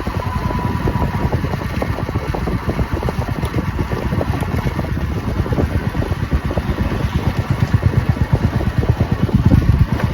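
Royal Enfield Meteor 350's single-cylinder engine running, its exhaust beats coming fast and even and growing a little louder near the end.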